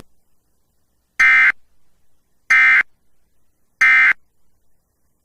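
Emergency Alert System end-of-message code: three short, buzzy digital data bursts about 1.3 seconds apart, marking the end of the tornado warning broadcast.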